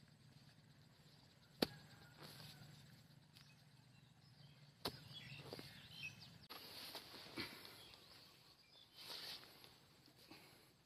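Faint digging in soil for earthworms: a few sharp knocks of the digging tool, the loudest about one and a half seconds in and another near five seconds, with soft scraping and rustling of earth between them.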